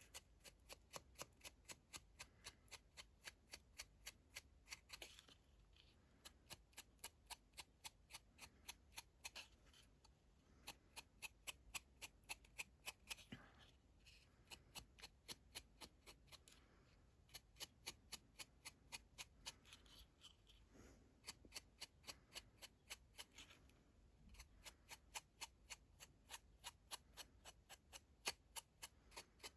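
Rapid, even tapping of a sponge dabbing gold ink or paint onto the edge of a hanging ornament, about three to four dabs a second, stopping briefly every few seconds.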